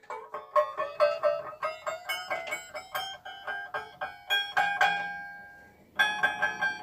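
A Pegas #5 spiral scroll saw blade is plucked with a finger about four times a second. Each pluck rings with a short ping that climbs in pitch as the blade tension is taken up. After a brief pause near the end, the plucks ring at a higher, steady pitch: the crisp 'ping-ping' that tells the blade is tensioned right.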